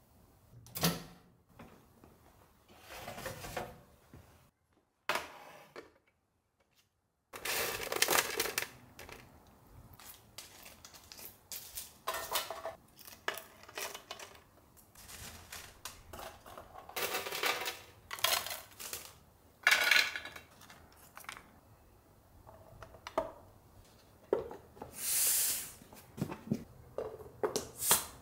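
Kitchen handling sounds: dishes and utensils clinking and clattering in a series of separate knocks and scrapes, with one longer hissing sound near the end.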